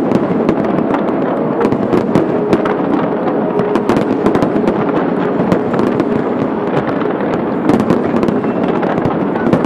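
A large fireworks display, with a dense, unbroken barrage of pops and crackles overlapping one another with no pause.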